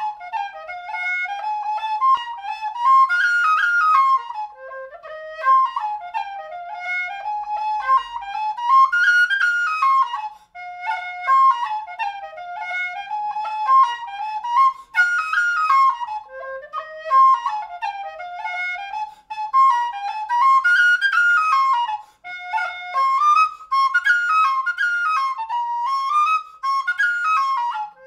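Solo B-flat tin whistle made by Guillaume Migault, playing a hornpipe: a quick run of notes rising and falling, with a few brief breaks in the sound.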